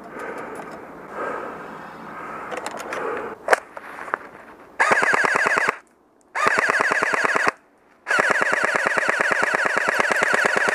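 Airsoft electric gun firing full-auto: three bursts of rapid, even shots over the gearbox motor's whine, starting about five seconds in. The first two last about a second each and cut off sharply; the third runs on to the end. Before them, low rustling and a single sharp click.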